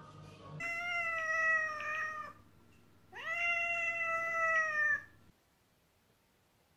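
A cat meowing: two long, drawn-out meows with a short gap between them, the second one sliding sharply up in pitch at its start.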